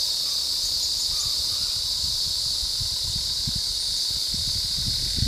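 Steady, high-pitched drone of insects from the roadside forest. From about two seconds in, an uneven low rumble joins it.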